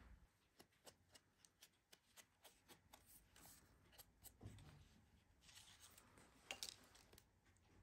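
Near silence with faint paper handling: soft rustling and light clicks as stacked die-cut card pieces are picked up and moved, a little louder near the end.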